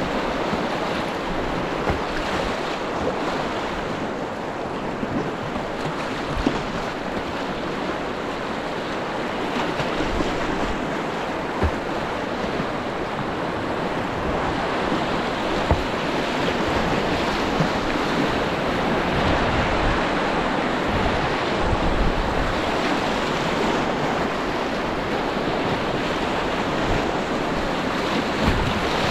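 Rushing white water of a shallow river rapid around a moving kayak, steady throughout, with wind buffeting the microphone and a few short splashes or knocks from the paddle.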